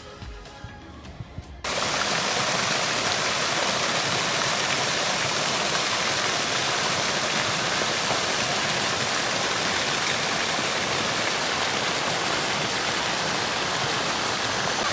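Fountain jets splashing into a large basin: a steady rush of falling water that begins abruptly about two seconds in, after a short stretch of quiet background music.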